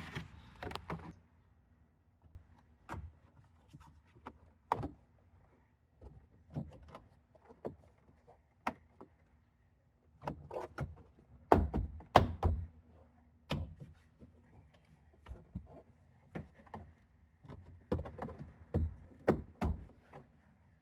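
Hard plastic interior trim cover being handled and pushed into place around a car's rear seat belt: irregular clicks, taps and knocks, the loudest cluster a little past halfway.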